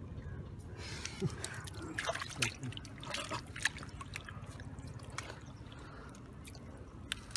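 Small splashes and drips of shallow water, made by hands working through a flooded paddy field, coming in irregular bursts that are thickest in the first four seconds.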